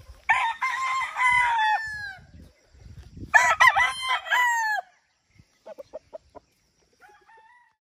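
Gamecock roosters crowing: two long crows, one after the other, each trailing down in pitch at the end. A few short clucks follow near the end.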